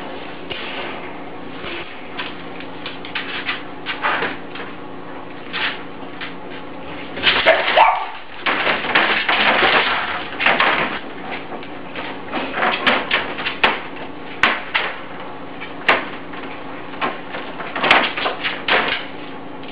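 A dog working at a metal cage lock with its mouth. The cage door and lock rattle and clank in irregular bursts, with a short rising squeal near the middle.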